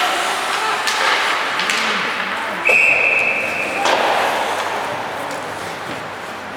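Ice hockey rink sounds: a few sharp clacks of sticks and puck, then a referee's whistle blown once, a steady high note lasting about a second near the middle, over the echoing hum of the arena.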